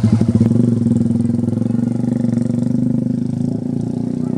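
A small engine running steadily with an even, rapid pulse, easing off a little after about two seconds.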